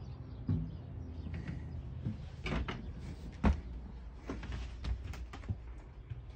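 A few scattered knocks and thuds, the loudest about three and a half seconds in, over a steady low rumble: footsteps and bumps of someone stepping into and moving about a De Havilland Heron's small passenger cabin.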